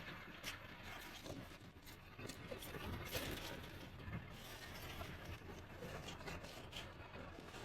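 Faint scattered clicks, light knocks and rustling of things being handled and moved about, over a low background hum.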